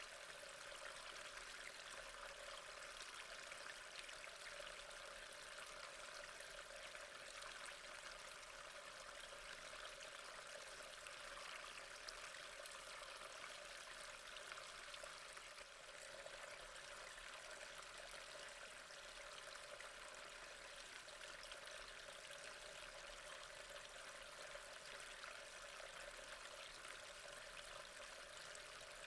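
Faint, steady trickle of gently flowing water.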